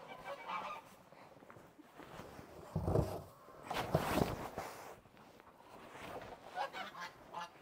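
Footsteps trudging through deep snow, with two louder crunching thumps about three and four seconds in. Geese start honking faintly near the end.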